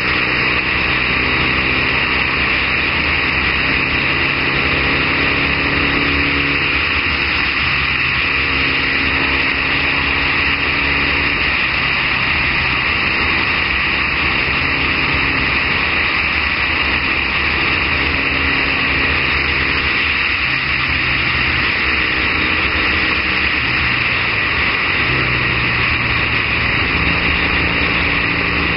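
Triumph Bonneville parallel-twin motorcycle engine running on the road at cruising speed, its note holding steady and shifting pitch a few times as the throttle changes, under a steady hiss of wind noise on the camera.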